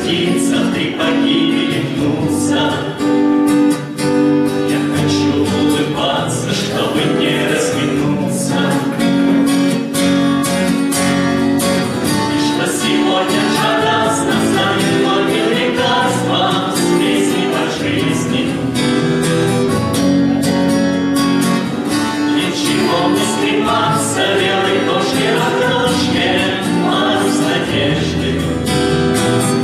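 A mixed group of men's and women's voices singing a Russian bard song together, accompanied by a strummed acoustic guitar.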